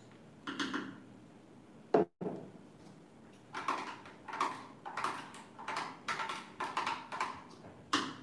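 A spoon knocking and scraping against a glass bowl and the rim of a plastic blender jar as ingredients are spooned in. There is one sharp knock about two seconds in, then a quick run of short strokes, about two to three a second.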